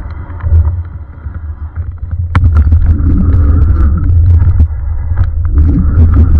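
Lankeleisi MG740 Plus fat-tyre e-bike riding over bumpy grass, heard from its handlebar camera: a heavy low rumble of tyres and wind on the microphone, with rattles and knocks from the bike over the bumps. A sharp knock comes about two seconds in, after which the rumble gets louder.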